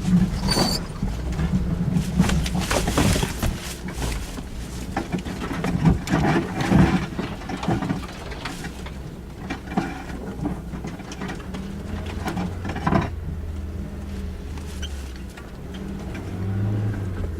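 Suzuki Jimny's engine running at low revs off-road, with irregular knocks and rattles over the first part and fewer after about thirteen seconds.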